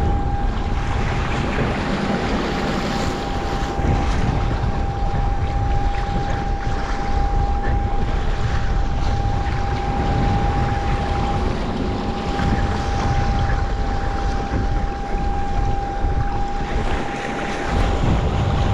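Wind buffeting the microphone and rough sea waves splashing against and around a kayak, with surges as swells pass; a steady high whine sounds alongside.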